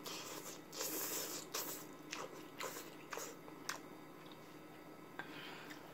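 Wet chewing and mouth sounds of someone eating thick, chewy instant ramen noodles: a short run of moist smacks and clicks that dies down after about four seconds.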